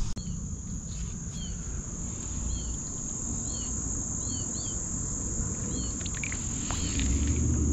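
A steady, high insect drone with a small bird giving short, repeated chirps about every half-second to second. A low rumble runs underneath and grows louder near the end.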